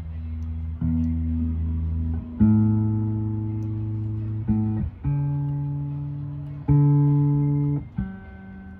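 Guitar notes plucked one at a time, about six in all, each left to ring and fade before the next note at a different pitch.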